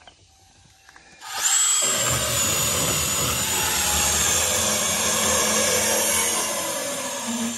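Battery-powered cutting tool running steadily with a high whine as it cuts through thick copper pipe, starting about a second in.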